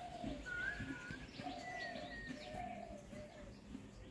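Birds calling: short wavy whistled notes at two pitches, repeating about once a second, over a low rumble of outdoor noise.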